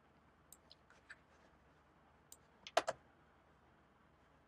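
Faint, scattered clicking at a computer, a few light clicks followed by a louder pair of clicks almost three seconds in.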